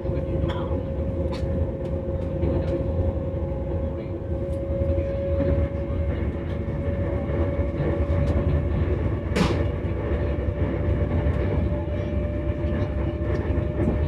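Running sound inside a Guangshen Railway CRH1A electric multiple unit. A single traction-motor whine climbs slowly in pitch as the train gathers speed, over a steady low rumble of wheels on track. A sharp click comes about nine seconds in.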